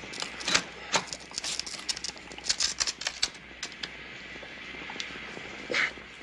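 Irregular clattering: a quick, uneven run of sharp clicks and knocks, then a lone knock and a short scrape near the end.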